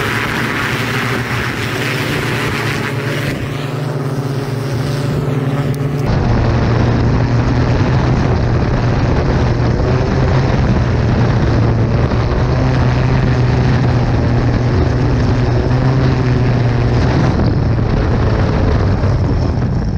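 Electric four-propeller hoverbike (Hoversurf Scorpion-3) hovering, its propellers giving a loud, steady drone with a low hum. From about six seconds in it is heard close under the craft: a heavier rumble with wind on the microphone.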